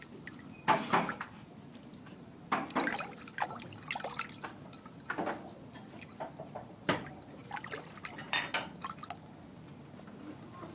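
Kitten splashing about in a dog's water bowl: irregular splashes and drips every second or two.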